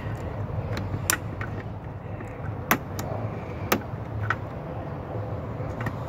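A handful of sharp plastic clicks as a red Scotch-lock wire-tap connector is handled and squeezed shut over a wire, the loudest about a third of the way in, over a steady low hum.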